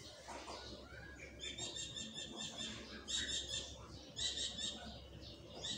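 High-pitched chirping from a small animal, coming in several short bursts of quick repeated chirps.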